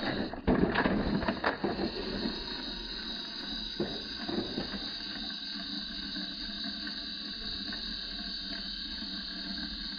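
Plastic toy container truck and the toy excavator on its trailer tipping over and clattering onto the ground about half a second in, rattling for a second or so, with a second smaller plastic clatter about four seconds in.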